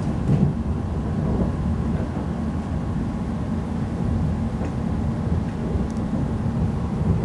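Class 345 electric train running along the line, heard from inside the passenger saloon: a steady low rumble with a faint steady high tone above it.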